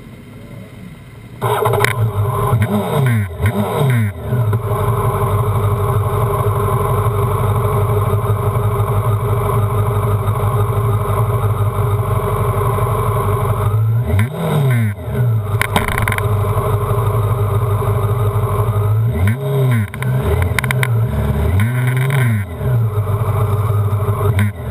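Honda CBR929RR's inline-four engine idling, coming in suddenly and loudly about a second and a half in, with several quick throttle blips that rise and fall in pitch.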